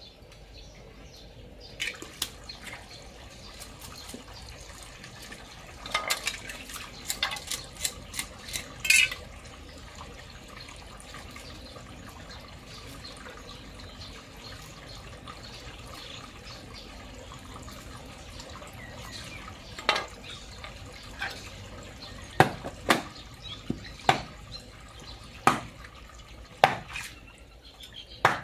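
A knife working on fish flesh against a cutting board, with scattered clicks and clatter. From about two-thirds of the way through, a run of about eight sharp knocks roughly a second apart: a hammer striking the back of a knife to chop a big silver carp into pieces.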